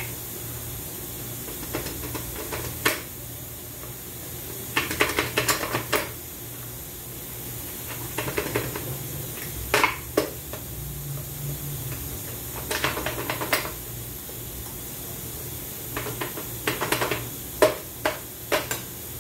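Metal clinking and rattling in irregular bursts as a hand tool works loose internal parts inside a 2014 Land Cruiser automatic transmission case, with several sharp single clicks near the end, over a steady low hum.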